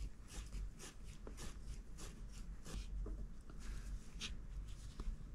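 Light scratchy rustling of yarn and knitted fabric being handled and pulled as a hat top is stitched and cinched closed by hand, a quick irregular run of short strokes.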